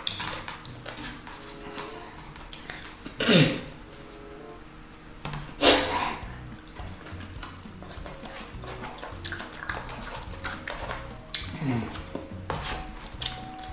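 Crunching bites and chewing of crispy fried chicken, with sharp crackles throughout and the loudest bite about six seconds in, over background music. Two short falling voice-like sounds come about three seconds in and near the end.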